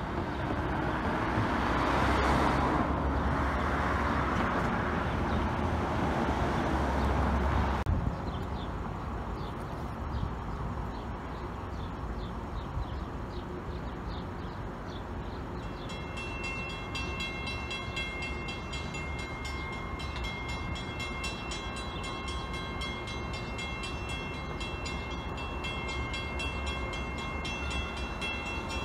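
Cars driving over the crossing, the loudest sound. Then, from about halfway, a WCH mechanical railroad crossing bell ringing in rapid, even strokes as the crossing gates come down.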